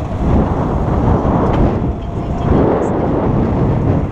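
Wind rushing and buffeting over the camera microphone, with low rumble from a Carbon Quest velomobile rolling along a paved bike path.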